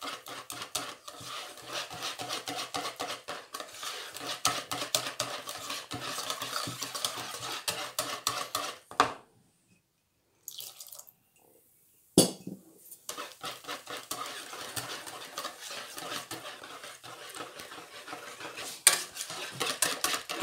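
Wire whisk beating thin pancake batter in a bowl: a fast, continuous run of clicks and scrapes as the wires knock against the bowl wall. It stops for about three seconds midway, then starts again.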